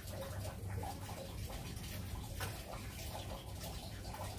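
Steady running and trickling water, a continuous bubbling splash over a low hum.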